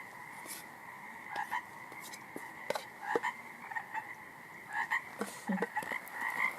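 A chorus of many frogs calling at once, a dense steady trill, with a few light clicks and knocks over it.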